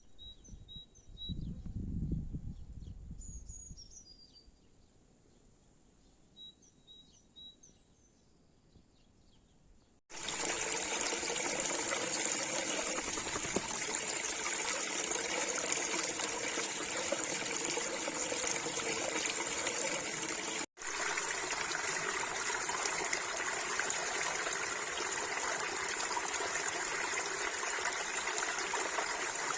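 Small birds chirping faintly over a quiet forest background, with a brief low rumble near the start. About ten seconds in the sound switches abruptly to a stream or brook flowing, a steady rushing of water that fills the rest.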